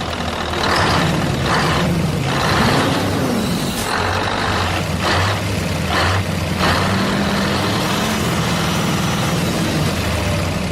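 A heavy vehicle's engine running, with a brief rise and fall in pitch about three seconds in, and a series of short hissing bursts over the first seven seconds.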